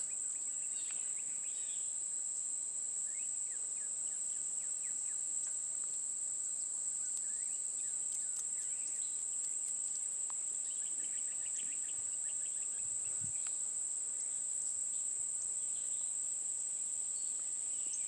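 Insects chirring in a steady, high-pitched drone, with a few faint bird chirps mixed in.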